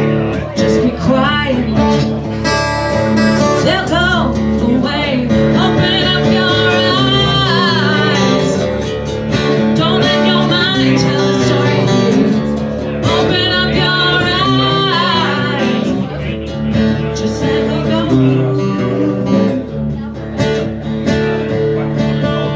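A rock song played on guitars with a lead voice singing over them, at a steady level.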